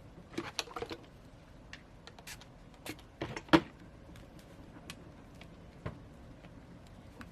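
Scattered light clicks and knocks of small objects being handled on a work surface, a cluster about half a second in and the loudest knock about three and a half seconds in, while the phone is being cleaned of excess glue with alcohol.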